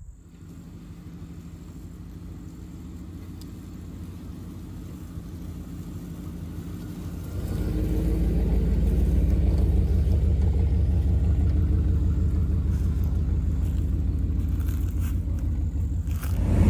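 Chevrolet pickup truck's engine running at a steady low idle, then pulling away and driving past, clearly louder from about seven and a half seconds in.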